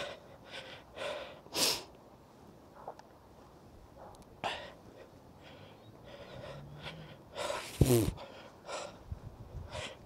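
Footsteps on a wet gravel path and grass, with a few sharp breath sounds in between, the loudest about eight seconds in.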